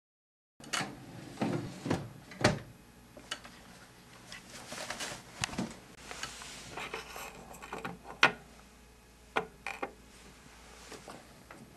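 Wooden cabinet and mechanism of an antique Columbia Grafonola phonograph being handled: an irregular run of knocks, clunks and clicks as it is readied to play a 78 rpm record.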